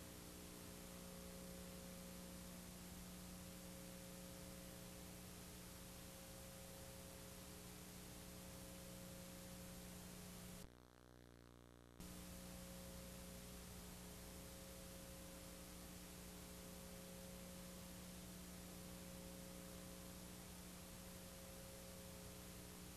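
Near silence: a steady hiss with a low electrical hum, with no sound from the scene. About eleven seconds in, the hiss cuts out for about a second, then returns.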